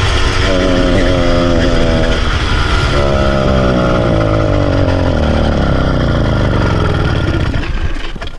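Motorised bicycle's kit engine running, its revs picking up about half a second in, then falling away steadily over several seconds until it dies near the end. It is starved of fuel: the fuel tap was left off.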